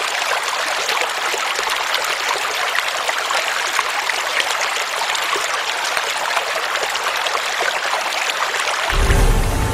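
Shallow stream running and trickling over stones: a steady bubbling water sound with no deep tones. Music comes back in near the end.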